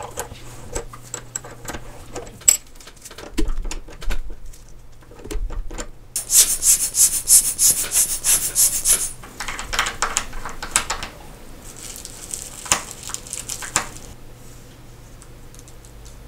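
Small tools and parts handled on a watchmaker's bench: light clicks and taps, then a few seconds of quick rhythmic rubbing at about four strokes a second, with two shorter spells of rubbing near the end.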